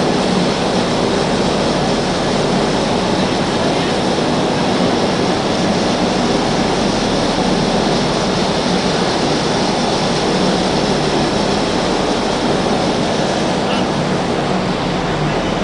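Steady, unbroken rushing noise on the deck of a ship at sea, with no clear pitch or rhythm.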